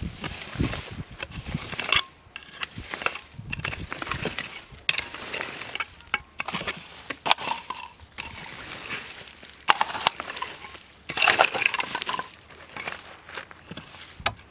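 A small hand hoe chopping and scraping into dry, stony soil: repeated knocks of the metal blade with gravelly scrapes and stones clinking.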